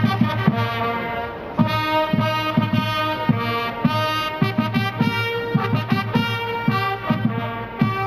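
Fanfare corps playing: valveless fanfare trumpets sound held chords that change every second or so, over a quick, steady beat of drums.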